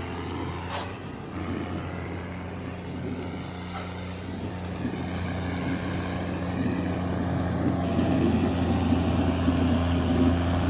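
Tractor diesel engine running steadily, growing louder over the second half.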